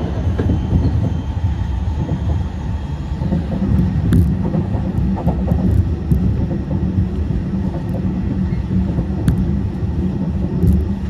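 Tokyu 5050-series electric commuter train, with Hitachi IGBT-VVVF drive and fully enclosed traction motors, running at speed, heard from inside the car. A steady low rumble of wheels and running gear on the rails, with a couple of sharp clicks, about four seconds in and again near nine seconds.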